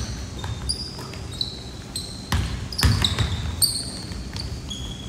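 Basketball game on a hardwood gym floor: sneakers squeaking in short high chirps, with the ball thudding on the court in a few sharp knocks about two and a half to three seconds in.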